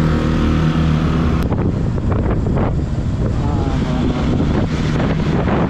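Motorcycle engine running steadily while riding; about a second and a half in the sound changes abruptly to rougher engine noise mixed with wind buffeting the microphone.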